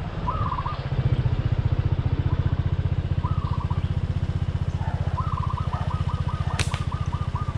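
Motorcycle engine running steadily at low revs, an even fast low pulsing. Short high chirps come in now and then, with a quick run of about a dozen near the end, and there is a single sharp click late on.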